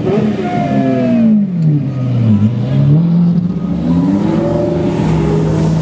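Lamborghini Murciélago V12 revving and pulling away. The engine pitch falls off, climbs again as it accelerates, then settles into a steady drone.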